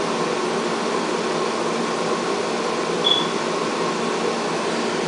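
Steady mechanical whir, like a fan or air-conditioning unit, running through. About three seconds in, a single brief high squeak.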